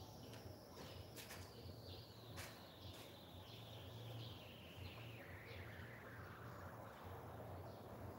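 Faint outdoor ambience: a low steady hum, a few light clicks early on, and a faint whine that slides slowly down in pitch over several seconds.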